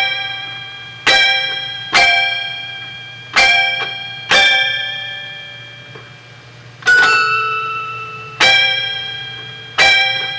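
Music from a cassette tape deck: single notes of a plucked or struck instrument, about eight in all, played one at a time at an uneven pace, each starting sharply and ringing out as it fades. A steady low hum runs underneath.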